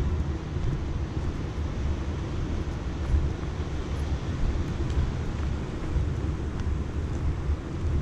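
Wind buffeting the microphone: a continuous, uneven low rumble with a faint hiss above it.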